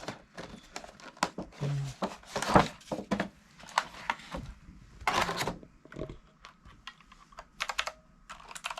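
Irregular clicks and taps of hard plastic being handled, with a few short rustles of packaging, as a new Razer gaming keyboard and its parts are unpacked.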